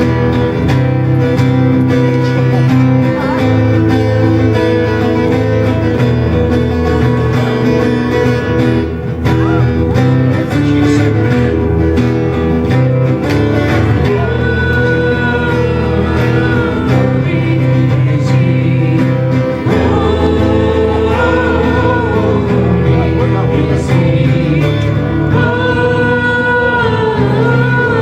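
Worship band playing a song, with guitar over steady bass and chords; singing comes through more clearly in the second half.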